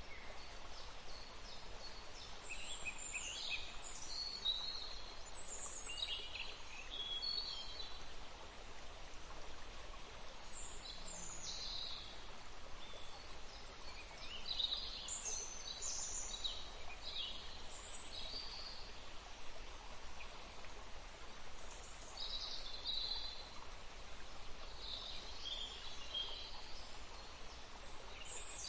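Birds chirping in several short, high-pitched spells, over a steady background hiss of outdoor ambience.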